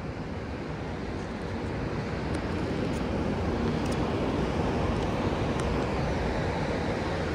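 A low roar of aircraft engines that grows steadily louder throughout.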